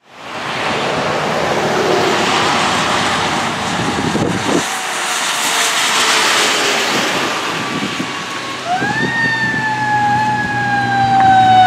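Steady hiss of traffic on a wet road, then about three-quarters of the way through a fire engine's siren sweeps up sharply and holds, slowly drifting down in pitch as the 1996 Spartan/Rescue 1 engine approaches.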